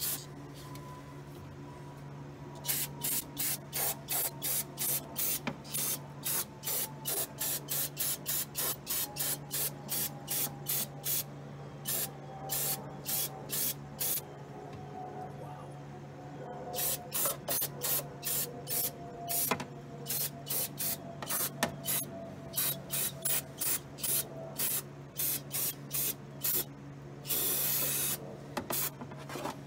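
Aerosol can of brake cleaner sprayed in rapid short squirts, about two or three a second, with a pause now and then, to dissolve decades of grime on suspension and brake parts. Near the end comes one longer spray of about a second. A steady low hum runs underneath.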